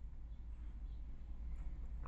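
Quiet room tone: a steady low hum under a faint hiss, with no distinct handling sounds.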